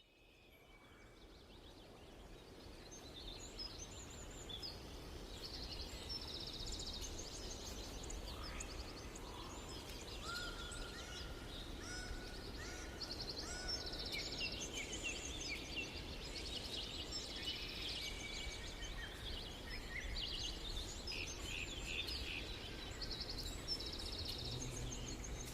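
Outdoor birdsong: many small birds chirping and trilling, with a few clear whistled notes, over a steady low rumble of background noise. It fades in from silence over the first few seconds.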